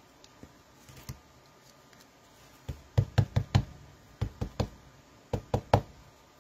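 Ink pad tapped again and again against a clear stamp mounted on an acrylic block to ink it: sharp plastic taps in three quick runs of three or four, the first run starting about three seconds in, after a few faint clicks.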